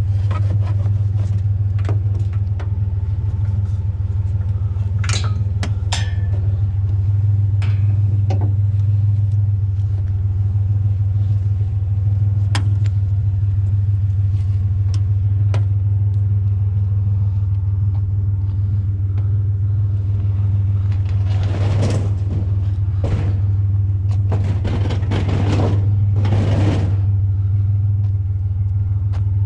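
Pickup truck engine idling steadily, a low hum under scattered clicks and knocks, with a few louder scraping, rustling noises about two-thirds of the way through.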